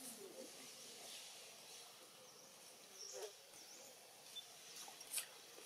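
Faint outdoor ambience: a low steady hiss with a few faint high chirps and a sharp click about five seconds in.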